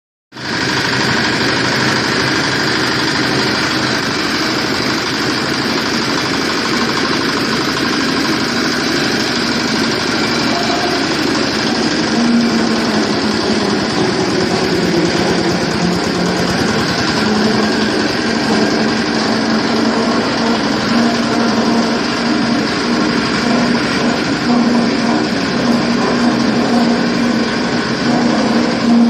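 12 hp diesel engine running steadily, driving an areca nut splitting machine. A low hum rises and falls from about halfway through.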